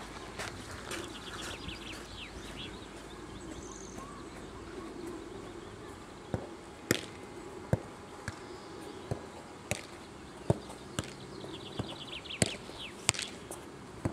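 Soccer ball kicked back and forth between two players: sharp thuds of the ball being struck, about one a second from about six seconds in. A bird sings a quick falling trill twice in the background.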